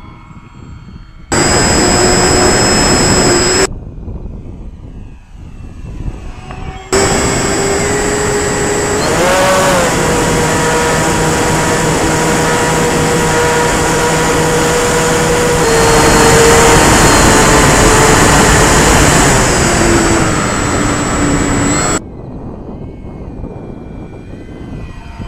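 RC DC-3/C-47 model plane's twin motors and propellers whining steadily up close, over loud wind rush, the pitch rising briefly and shifting as the throttle changes. Hard cuts switch a few times to the same plane heard fainter from a distance.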